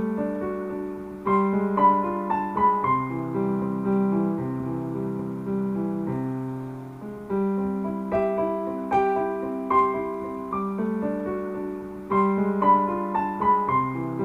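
Background piano music: a gentle melody of struck notes over held bass notes, repeating a phrase about every six seconds.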